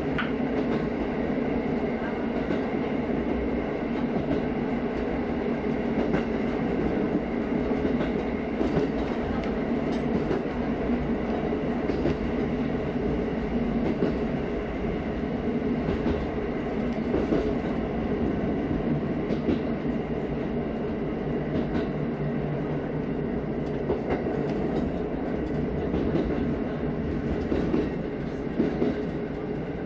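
KiHa 54 diesel railcar running along the line, heard from inside its cab: a steady engine and running noise, with now and then a click from the wheels over the rail joints.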